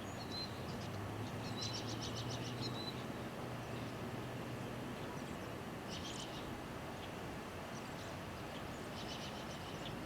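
Wind rushing over the microphone with small birds chirping in quick trills, three times: about two, six and nine seconds in. A low steady hum sits under the first half.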